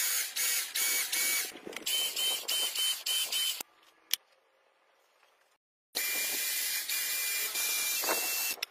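Small electric motor-driven pump of a homemade hydraulic system running with a pulsing whir and hiss. It stops about three and a half seconds in, a single click follows, and it starts again about six seconds in.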